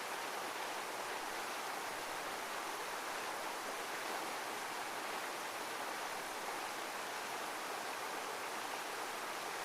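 Heavy waterfall: a steady, unbroken rush of falling water with no rise and fall of waves.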